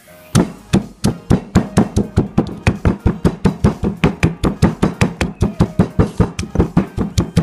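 Stone pestle pounding shallots, garlic, green chillies and whole spices with salt in a stone mortar to grind a masala paste: steady rhythmic thuds, about four a second, starting just after the beginning.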